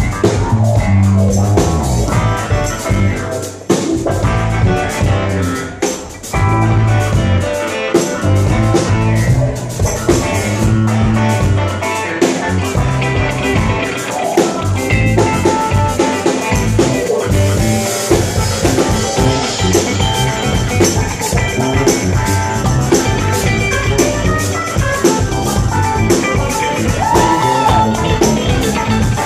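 A band playing live, amplified, with guitar and a drum kit keeping a steady beat.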